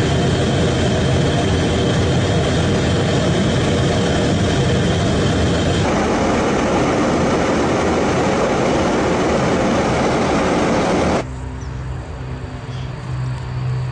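Tu-95 bomber's four NK-12 turboprop engines and contra-rotating propellers running, a loud steady rush of engine and propeller noise. The sound changes abruptly about six seconds in. About eleven seconds in it drops to a quieter, lower drone with a steady hum.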